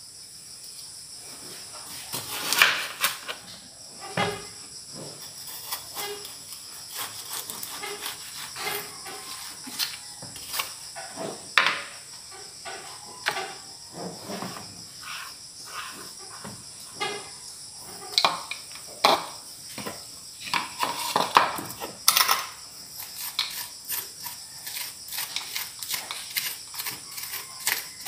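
Knife knocking and scraping on a wooden cutting board as winter melon is sliced and its seeds scraped out, in irregular sharp taps about every second. A steady high chirring of crickets runs underneath.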